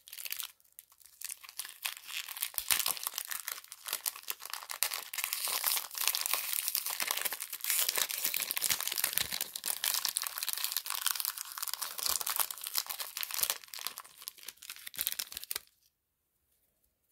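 A 1991 Topps Stadium Club hockey card pack being torn open, its wrapper crinkling and tearing in a dense, crackly run that stops suddenly near the end.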